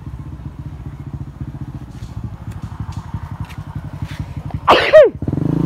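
Honda scooter engine running through its cut-down stock exhaust pipe, a fast low putter. Just before the end there is a loud, sharp cry falling in pitch, after which the engine comes back louder.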